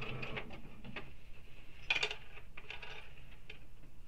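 Sewing machine running a basting stitch in a fast, steady rhythm that stops about half a second in. Scattered light clicks and taps follow as the fabric is handled at the machine; the loudest comes about two seconds in.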